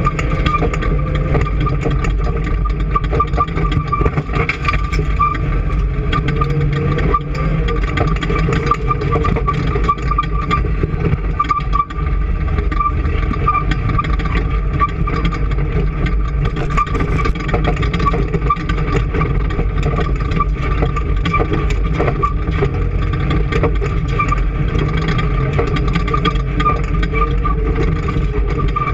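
An engine running steadily at an even speed, with a constant high whine over the low engine sound.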